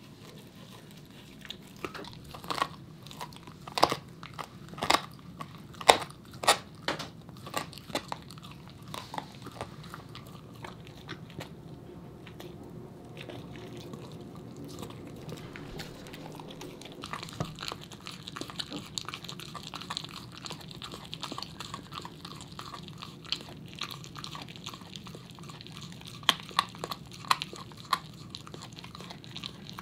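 A corgi puppy gnawing a raw lamb femur bone: sharp crunches of teeth on bone, a run of loud bites a couple of seconds in and another near the end, with quieter steady gnawing between.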